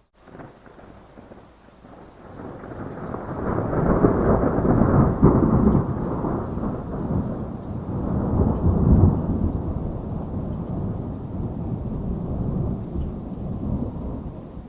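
A long roll of thunder that builds over a couple of seconds, rumbles at its loudest for several seconds, then slowly fades, over steady rain.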